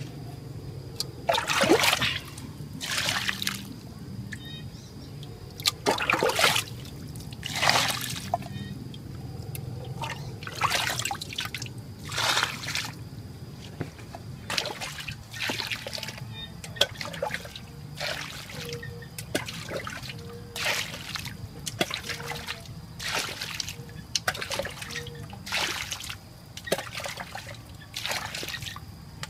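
Muddy water being scooped by hand and with a small plastic container out of a shallow earth pit and poured off: a run of sloshes and splashing pours every second or two.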